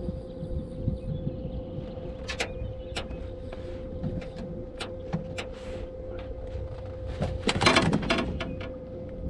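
Boat motor running at slow trolling speed with a steady hum. Scattered sharp clicks, and a louder noisy burst about seven and a half seconds in.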